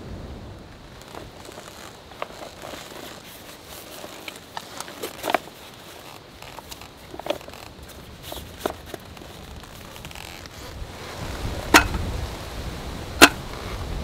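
Camping gear being handled: scattered light clicks, knocks and rustles, then two sharp clacks about a second and a half apart near the end as a folding aluminium slatted camp table is set up. Wind rumbles on the microphone, building toward the end.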